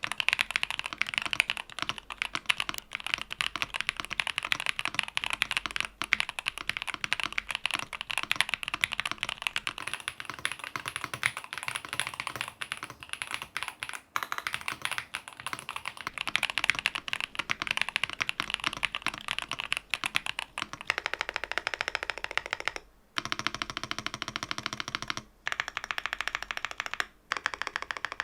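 Typing on a YUNZII AL65 aluminium-cased pre-built keyboard with YUNZII Milk V2 linear switches: a fast, continuous run of keystrokes, broken by a few short pauses near the end.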